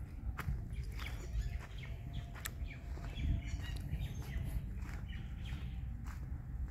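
Small birds chirping in short, scattered calls over a steady low rumble, with occasional sharp clicks.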